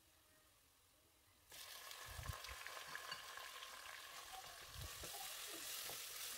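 Faint sizzling of ground onion paste frying in hot oil with garlic in a metal pot, stirred with a wooden spoon. It starts about a second and a half in, with two soft low knocks.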